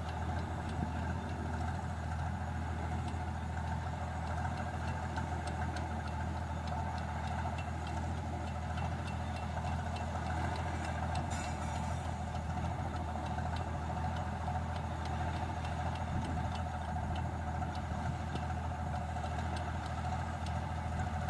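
Combine harvester's engine running steadily, unloading paddy through its auger into a lorry.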